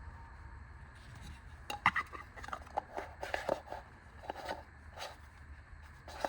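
Handling noise from a plastic battery lantern: a run of small irregular clicks and crinkles that starts about two seconds in, over a low steady hum.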